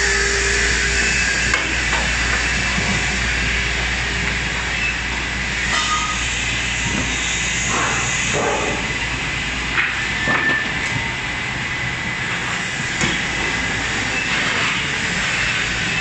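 Woodworking multi rip saw line running steadily, a loud continuous machine noise with a thin high whine and a few short knocks about ten seconds in.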